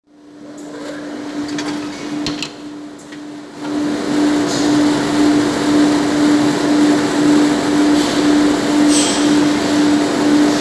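CNC copying shaper for brush blocks running, its cutter spindle giving a steady hum. There are a few clicks in the first three seconds, then at about three and a half seconds a louder, even rushing noise sets in and carries on as the cutter mills the wooden hair-brush block.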